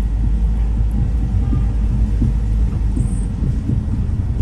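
Steady low road rumble of a car driving on city streets, heard from inside the cabin.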